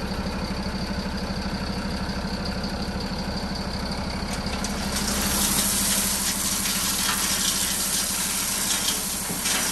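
Diesel engine of a 19-tonne truck running steadily at low revs, with a broad rushing noise joining it about halfway through.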